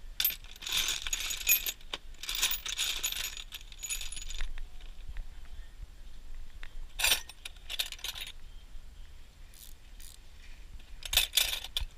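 Small metal objects clinking and jingling against each other as they are handled, in several short bouts with pauses between.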